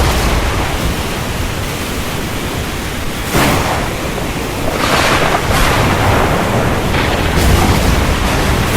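Heavy rain falling as a steady, loud hiss and roar, swelling in surges about three and a half and five seconds in.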